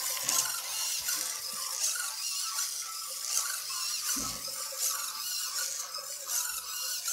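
Hobby servo motors in a robot dog's legs buzzing at a high pitch as they drive two legs through a walking motion, with small clicks along the way.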